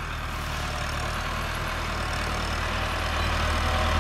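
Massey Ferguson 385 tractor's four-cylinder diesel engine running steadily while it pulls a zero-till seed drill, growing gradually louder as it approaches.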